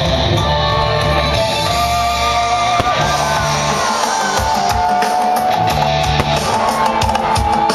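Loud rock music with guitar, a gliding lead line held over a steady bass.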